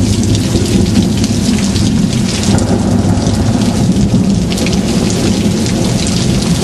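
Heavy thunderstorm rain pouring down steadily, with a continuous low rumble of thunder underneath.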